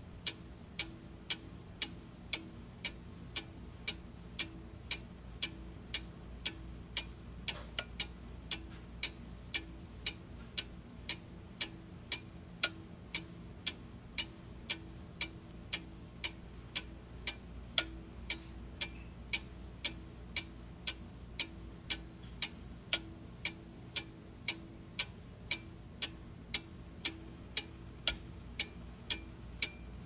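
Steady mechanical ticking: sharp, evenly spaced ticks, a little under two a second, that never change pace, over a faint low background hum.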